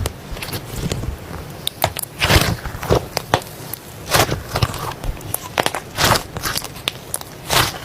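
Slime being squeezed and poked by hand, making irregular sticky pops and crackles, a dozen or more in quick, uneven succession.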